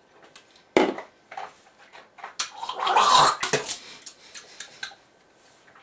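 A man gulps a shot of vegetable oil from a cup, with a sharp knock about a second in. Then he gags and spits over the sink in a loud, ragged spell around three seconds in, a reaction to the oil's foul taste.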